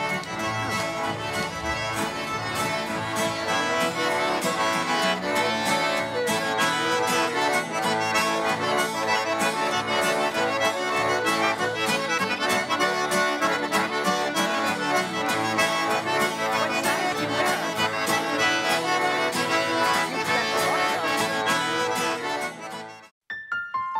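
Cajun band music: a button accordion and fiddle playing a lively tune with a steady beat. The tune cuts off near the end, and a few soft notes of a gentler tune begin.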